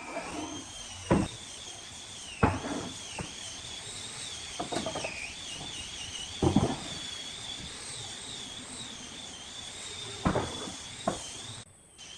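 Sharp knocks, as of wood being struck in carpentry work, come at irregular intervals, about seven in all. Under them runs a steady, slightly wavering high-pitched whine.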